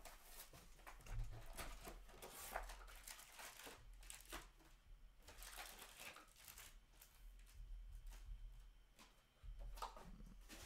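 Faint, scattered rustling and crinkling of trading card pack wrappers and cards being handled, in short irregular crackles.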